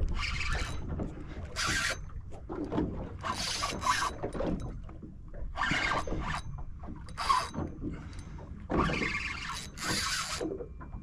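Spinning fishing reel working while a fish is played on a bent rod: a run of short, irregular rasping bursts from the reel, over a low steady rumble of boat and water.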